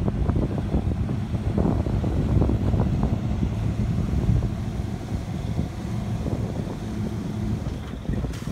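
Small-block 383 stroker V8 in a lifted Toyota 4Runner running under load as the truck crawls down into a mud hole: a steady, rough low rumble, with wind buffeting the microphone.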